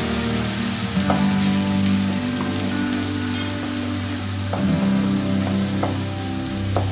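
Food sizzling as it fries in oil in a kadai, stirred with a wooden spatula that scrapes and knocks against the pan every second or so. Soft background music with held notes plays underneath.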